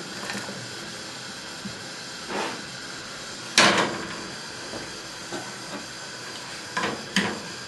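Frying pan of sliced onions on a gas hob, the pan still cold and heating up: a steady hiss with a few knocks and scrapes of the pan, the loudest about three and a half seconds in.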